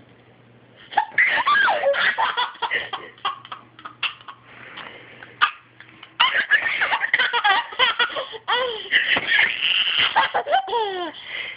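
Baby laughing in repeated high-pitched bursts of giggles, starting about a second in, with a short lull midway and harder, near-continuous laughing after it.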